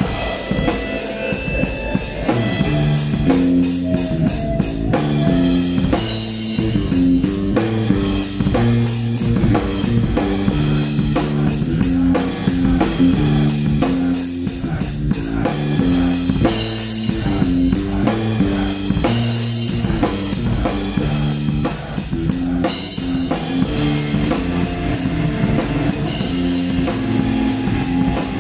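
Live black metal band playing: a drum kit with rapid cymbal and drum hits under a guitar riff that steps between notes several times a second, loud and unbroken.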